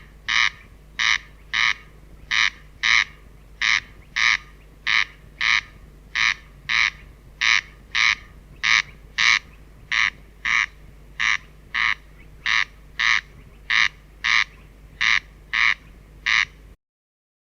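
Corncrake calling its dry, rasping 'crex crex', the two notes of each pair coming in quick succession and the pairs repeated steadily about every 1.3 seconds. The calling stops abruptly near the end.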